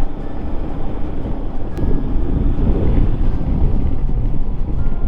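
A Royal Enfield Himalayan motorcycle riding at road speed: wind buffets the microphone over the steady run of its single-cylinder engine.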